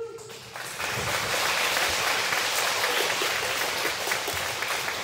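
A large crowd of schoolchildren and adults applauding, a dense steady patter of clapping that swells up about a second in and holds.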